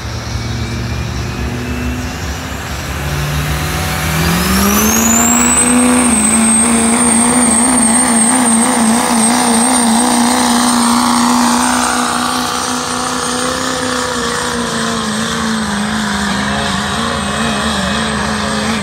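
Dodge diesel pickup pulling the sled under full load: the engine revs up about four seconds in and holds high revs, with a high turbo whistle that rises and then holds steady. The engine eases off a little after about twelve seconds.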